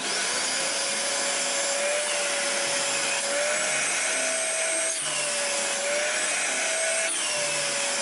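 Parkside PNTS 1500 D5 wet & dry workshop vacuum switched on, its motor spinning up and then running steadily. The suction hose is held to a beard. The motor whine rises and falls slightly a few times.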